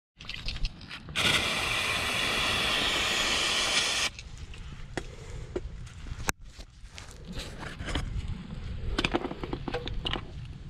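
Aerosol spray can hissing steadily for about three seconds, starting about a second in, then light clicks, taps and scraping from handling a removed gearbox, with one sharp click about six seconds in.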